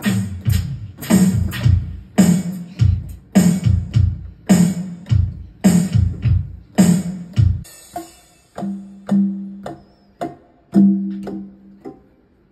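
Digital keyboard music: a drum-machine beat with deep bass, which cuts off about seven and a half seconds in, followed by a few separate held keyboard notes.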